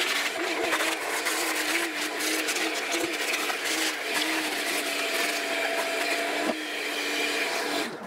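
Shop vacuum running, its hose sucking up metal chips from a CNC mill's Y-axis way, with scattered clicks through the steady motor noise. It starts abruptly and shuts off near the end.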